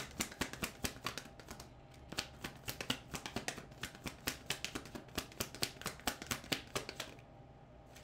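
A deck of tarot cards being overhand shuffled by hand, the cards slapping and riffling against each other in a quick run of light clicks, about five a second, that stops about seven seconds in.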